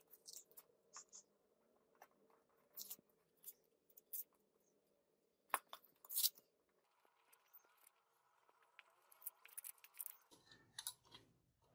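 Tape and paper masking being slit and peeled off painted lantern parts: quiet, scattered crackles and short rips, with a few sharper tears in the middle.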